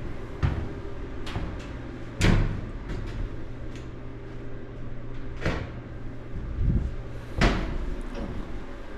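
Irregular knocks and bangs, about six in all, the loudest a little over two seconds in and again past seven seconds, over a steady low hum.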